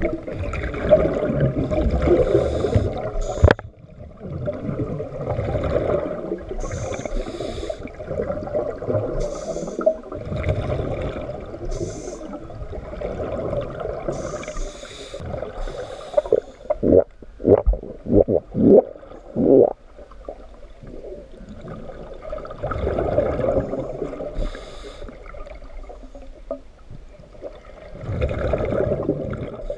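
Scuba diver breathing through a regulator underwater: short hisses on the inhale and rumbling bubble exhaust on the exhale, in cycles every few seconds. A quick series of sharp knocks comes a little past the middle.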